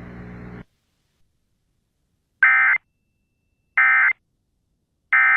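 Emergency Alert System end-of-message (EOM) data bursts: three short, identical rasping two-tone digital bursts about 1.3 s apart, the signal that marks the end of the alert. Before them, a faint radio hiss with hum cuts off about half a second in.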